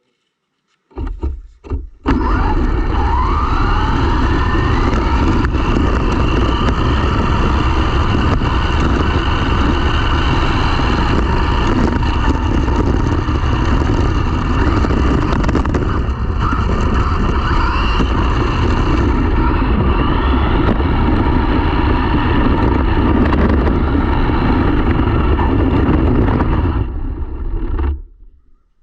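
RC car running hard: a loud continuous rush and rumble with a motor whine that rises in pitch several times as it speeds up, cutting off abruptly near the end.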